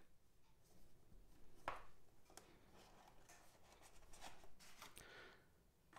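Near silence with faint hand handling of a small cardboard product box being opened: a light tap a little under two seconds in, then soft rubbing.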